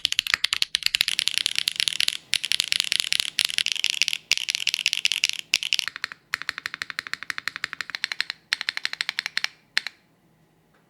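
Mechanical keyboard typed on fast in a typing test: rapid clacking keystrokes broken by a few short pauses, ending with a last keystroke about ten seconds in.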